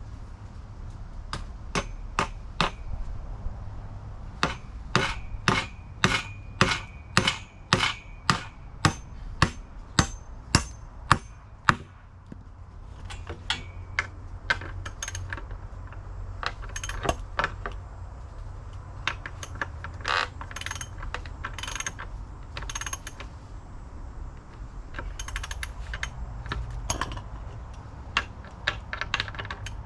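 Hammer blows on a nail, about two a second for several seconds, each with a metallic ring, followed by scattered clicks, knocks and clatter of tools and hardware being handled.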